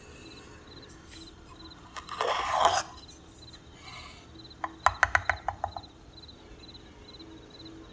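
Granulated sugar poured into a glass bowl of egg yolks, a short hiss about two seconds in. A metal spoon then scoops salt from a bamboo salt box: a quick run of light clicks and scrapes about five seconds in. A faint cricket-like chirping repeats throughout.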